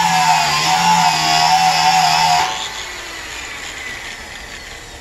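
Electric angle grinder with a wire cup brush scouring rust off a cast-iron cauldron lid, running with a steady whine, then switched off about two and a half seconds in and winding down with a falling whine.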